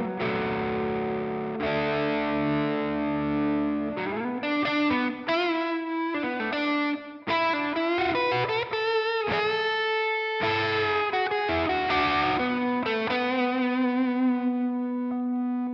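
Electric guitar played through the Valeton GP200 multi-effects unit's distortion. A distorted chord rings for the first few seconds, then a lead line of single notes with slides and bends follows, ending on a long sustained note.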